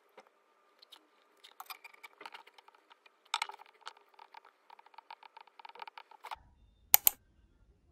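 Stylus tip tapping and ticking on a tablet's glass screen while notes are written by hand, a quick run of light ticks. Near the end come two sharp, louder clicks in quick succession.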